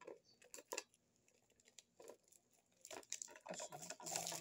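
Clear plastic wrapping crinkling and crackling as it is handled and peeled off a plastic toothbrush holder: scattered crackles at first, then denser crinkling over the last second and a half.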